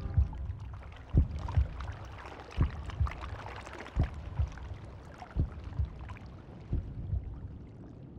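Slow heartbeat sound effect, six double thumps about a second and a half apart, over a muffled watery wash.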